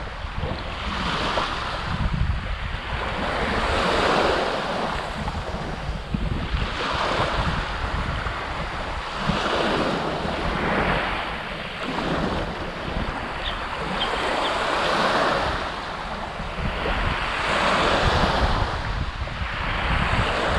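Small waves breaking and washing up a pebble shore, swelling and fading about every three seconds, with wind buffeting the microphone.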